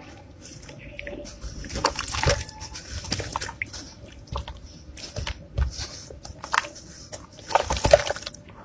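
Hands squeezing and breaking soaked, crumbly red blocks in a bucket of water: wet squelching and crumbling with sloshing and dripping. There are irregular louder squelches about two seconds in and near the end.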